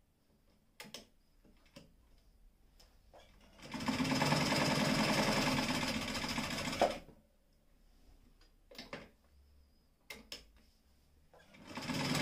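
Brother Window-Matic semi-industrial sewing machine running, stitching through layered material in one fast run of about three seconds that starts a few seconds in. Scattered clicks and knocks come before and after, with a short louder burst ending in a sharp click near the end.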